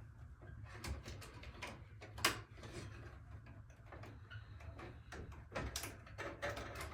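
Scattered light clicks and knocks from handling roller-shutter parts, with one sharper knock about two seconds in, over a low steady hum.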